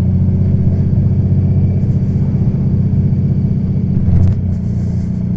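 Honda Valkyrie's 1832cc flat-six engine running steadily while riding, with a brief change in its note about four seconds in.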